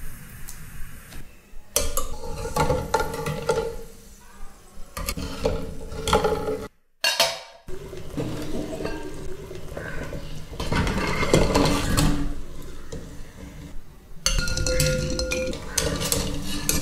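A string of cooking sounds at a metal pot of water: salt poured in, then a stainless steel lid handled and set on the pot with metal clinks. Near the end a wire skimmer scoops boiled eggs out of the water, clinking against the pot.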